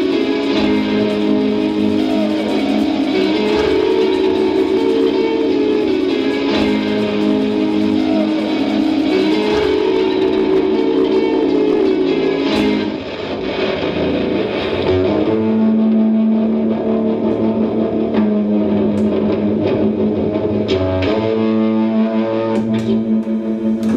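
Solo improvisation on a Stratocaster-type electric guitar: dense ringing notes and chords that dip briefly about halfway. A low note is then held under sparser playing, and the sound fades away at the very end.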